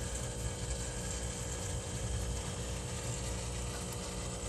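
Aquarium pump running steadily, a low hum with water noise.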